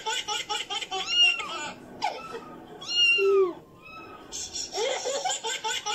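A person laughing in quick rhythmic bursts, about six a second, broken by two drawn-out rising-and-falling meows, one about a second in and a louder one about three seconds in; the laughter picks up again near the end.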